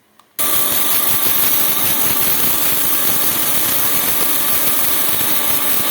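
Kitchen mixer grinder (mixie) switching on abruptly about half a second in and running steadily at speed, its blade grinding dry-roasted toor dal with red chilli and rock salt to a powder, with no water added.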